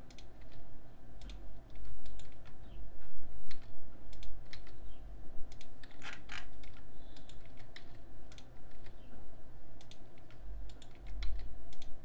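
Computer keyboard keys and mouse buttons clicking in scattered, irregular single presses, over a low steady hum.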